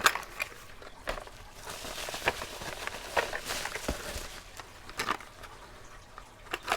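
Handling of small metal mortise lock cylinders and their packaging: scattered light clicks and knocks with soft rustling in the middle.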